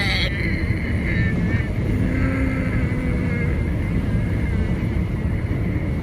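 A woman humming a steady closed-mouth "mmm" of bhramari (humming bee) breathing, over the steady road noise of a moving car heard from inside the cabin.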